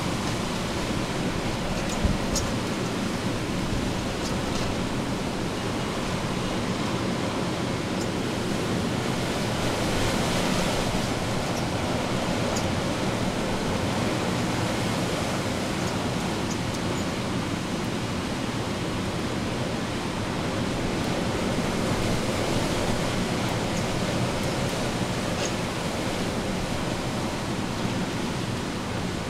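Hurricane Ida's wind and rain as a steady, even rushing noise, with a single sharp knock about two seconds in and a few faint ticks.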